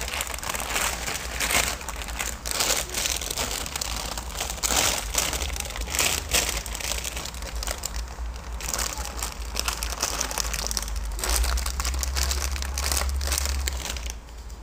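Plastic packaging crinkling and crackling as it is handled close to the microphone, in irregular bursts of rustling.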